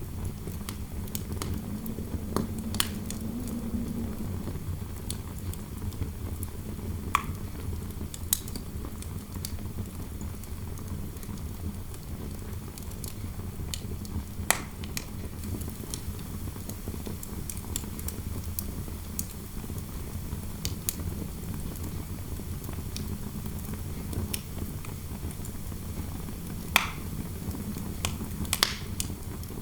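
Fireplace fire crackling, with scattered sharp pops over a steady low rumble of wind noise. The loudest pops come near the end.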